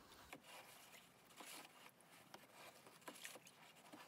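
Hand stirring water in a plastic tub to dissolve baking soda for an electrolysis rust-removal bath: faint, irregular swishing and splashing that swells every second or so.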